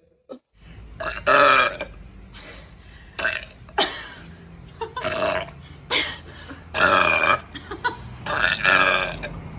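A person belching loudly over and over: a run of about seven separate burps, each a second or less, starting about a second in.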